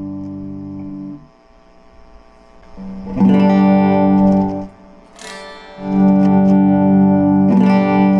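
Cort CR50 electric guitar played through a Cort MX15R practice amp. A ringing chord fades out about a second in, then three chords are strummed and left to ring.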